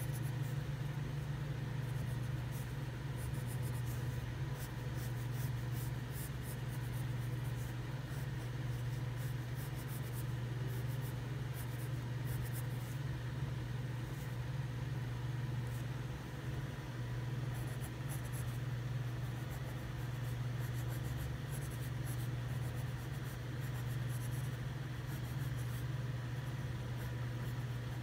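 Graphite pencil scratching across paper in short, repeated sketching strokes, over a steady low hum.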